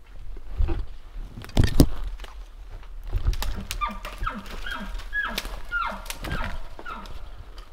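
Dry sticks snapped by hand to imitate elk moving through the timber: a few sharp cracks, loudest about a second and a half in. These are followed by a run of about eight short calls, each falling in pitch.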